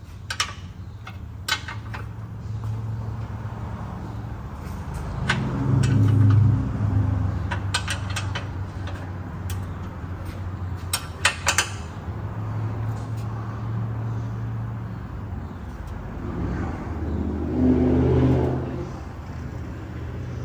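Steady low mechanical hum that swells louder twice, about six seconds in and near the end, with scattered sharp metallic clicks and taps.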